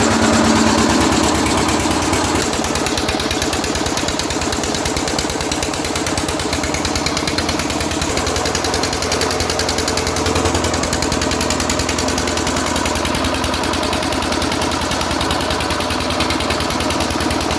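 Usha 16 hp single-cylinder diesel engine running steadily, its firing beats coming quickly and evenly, a little louder for the first two seconds.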